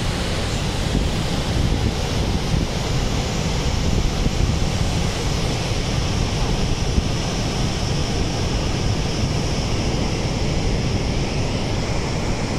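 Steady rush of the Horseshoe Falls at Niagara, an even, unbroken noise of a huge volume of plunging water, heaviest in the low end. Wind buffets the microphone on top of it.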